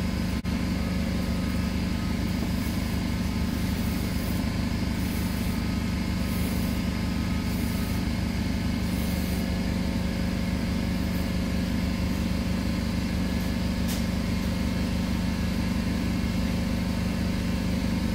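A steady machine hum runs throughout. Over it, for the first half, a faint swish comes about once a second as a string is pulled hand over hand through a golf cart's hollow roof support tube.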